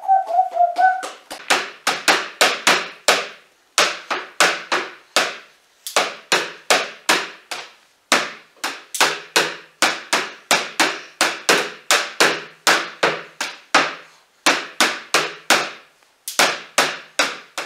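A toddler drumming with his hands on a wooden wardrobe door: a long series of sharp slaps and knocks, about three a second, in runs with brief pauses.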